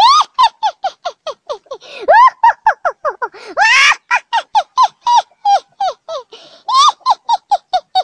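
A young girl laughing hard in rapid high-pitched 'ha' bursts, about five a second, each falling in pitch. The run is broken twice by sharp, squealing in-breaths.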